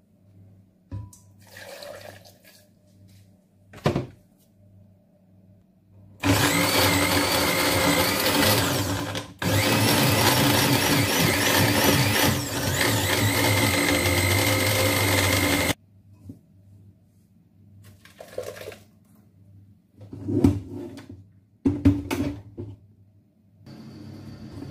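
Countertop blender puréeing raw potato chunks with water, running loudly for about nine seconds with a momentary stop and restart a few seconds in. Before and after it come a few knocks and clicks of the jar being handled.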